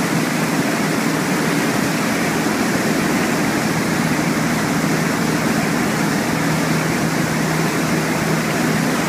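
A boat underway: a steady motor drone under the rush of water along the hull and wake.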